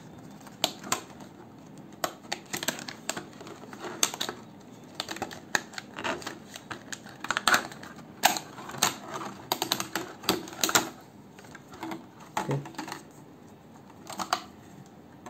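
Stiff clear plastic clamshell packaging and its cardboard insert being handled and pried open: irregular sharp crackles, clicks and rustles, thinning out near the end.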